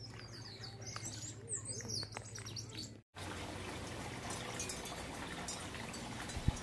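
Small birds chirping and twittering for about three seconds. After a brief break, the fine, steady splashing of small birds, dark-eyed juncos, bathing and fluttering in a shallow dish of water.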